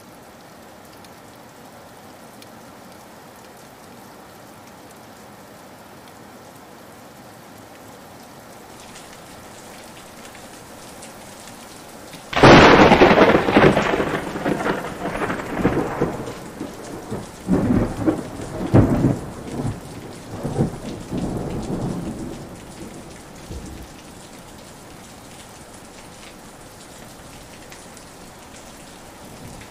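Steady rain with a loud thunderclap about twelve seconds in, which rumbles on in several rolling swells and dies away over about ten seconds.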